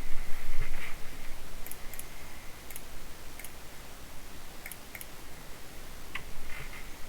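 Mechanical keyboard keys with Cherry MX Silver Speed linear switches being pressed, giving a scattered series of sharp, irregular clacks.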